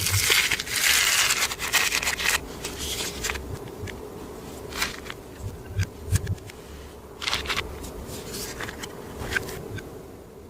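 Clear slime being squished and mixed by hand, giving sticky crackles and pops: dense crackling for about the first two seconds, then scattered pops.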